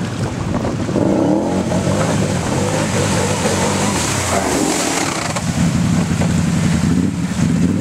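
ATV engines revving as the quads wade through shallow water, their pitch rising and falling, over the rush of water splashing off the wheels and wind on the microphone.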